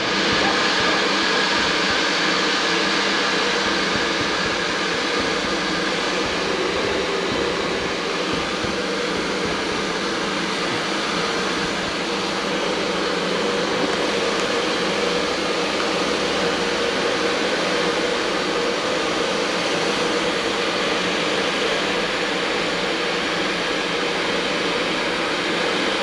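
Handheld hair dryer running steadily, a constant whir of fan and rushing air.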